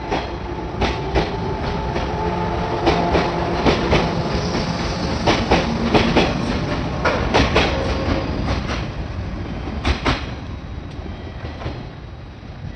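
JNR 415 series electric train pulling out past the platform, its wheels clacking over rail joints over a steady rumble, with a faint hum that rises as it gathers speed. The clacks thin out and the sound fades away as the last car leaves, about ten seconds in.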